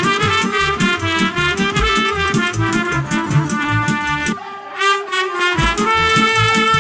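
Live band playing fast folk dance music, a trumpet-led brass melody over a steady drum beat. Near the middle the drum and bass drop out for about a second, then the full band comes back in.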